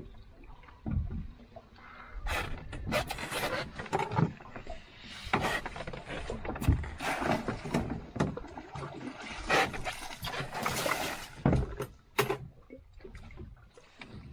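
Irregular bursts of rustling noise and short knocks aboard a small open fishing boat at sea.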